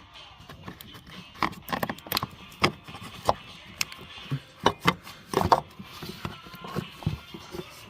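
A series of irregular knocks and clicks, some in quick pairs, with the loudest cluster in the second half.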